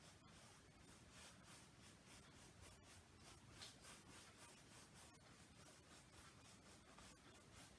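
Faint, quick, repeated scratchy strokes of a paintbrush working acrylic paint on canvas.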